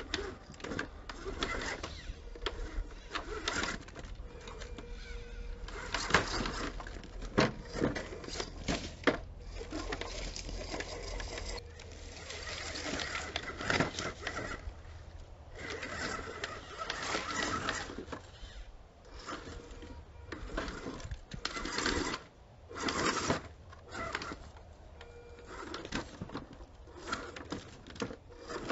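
Scale RC rock crawler on an Axial chassis working its way over rocks: its electric motor and gear drivetrain whir on and off, with many clicks and knocks from tyres and chassis striking the stone.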